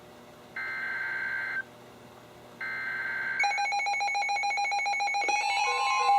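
NOAA Weather Radio SAME alert header: two bursts of warbling digital data tones, each about a second long with a second's gap between them. From about three and a half seconds in, a chorus of weather alert radios sets off its electronic alarm beeps as the code triggers them. Near the end the broadcast's steady 1050 Hz warning alarm tone joins, which announces a flood warning.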